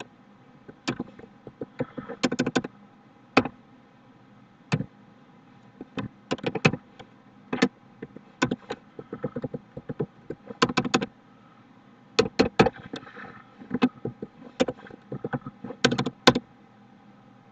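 Computer keyboard keys clicking in short bursts of typing, with pauses of a second or two between the bursts.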